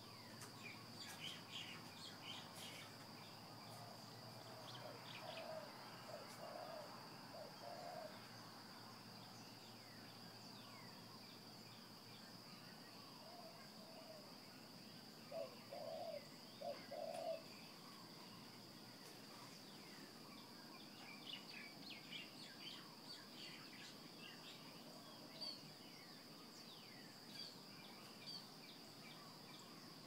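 Birds singing at dawn, many short high chirps coming in flurries, over a steady high-pitched insect drone. Two groups of a few lower, louder notes stand out, one around five to eight seconds in and the loudest around sixteen seconds in.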